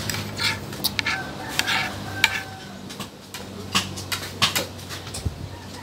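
Metal fork clinking and scraping against a plate in irregular sharp ticks while someone eats.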